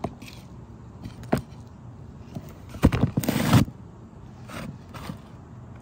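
Scattered clicks and scraping from working sealant into a metal RV roof seam, with one loud rasping scrape about three seconds in.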